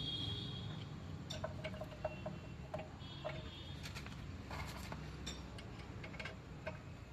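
Scattered metal clicks and light taps from hand tools on a brake caliper as its sliding-pin bolts are fitted and tightened, some with a brief metallic ring, over a low steady workshop hum.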